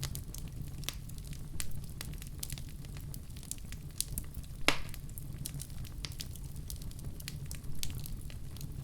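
Wood fire crackling in a fireplace: scattered sharp crackles and pops over a steady low rumble, with one louder pop about halfway through.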